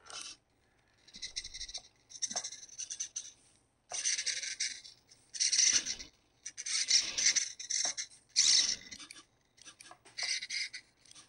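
Small hobby servos of an animatronic puppet's 3D-printed eye mechanism whirring in short, irregular bursts as they move the eyes and eyelids through a replayed routine. There are about seven bursts, each lasting around half a second to a second, with brief pauses between them.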